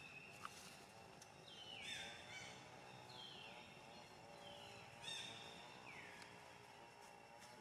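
Faint, high calls, each falling in pitch and lasting under half a second, repeated about five times at uneven gaps of one to two seconds.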